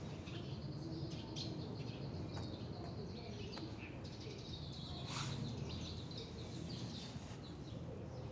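Small birds chirping and twittering, many short high calls in quick succession, with one louder chirp about five seconds in, over a steady low background rumble.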